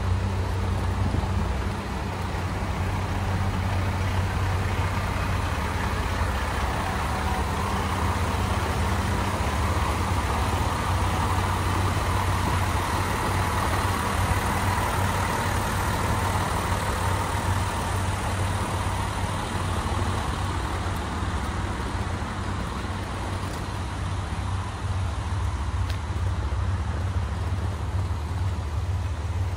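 Diesel engines of a stationary KiHa 185-series railcar idling, a steady low hum. A broader rushing noise swells and fades in the middle.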